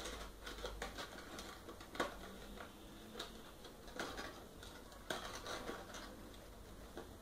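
Cardstock box being closed and handled by hand: soft, irregular taps and rustles as its paper flaps are folded shut.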